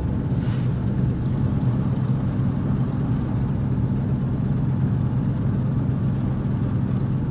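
Car engine and road noise heard from inside the cabin: a steady low hum.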